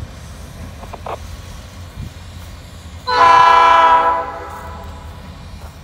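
Diesel freight locomotive air horn sounding one blast of about a second, starting about three seconds in, from the head of a departing train. Under it runs the low rumble of the train's covered hopper cars rolling away.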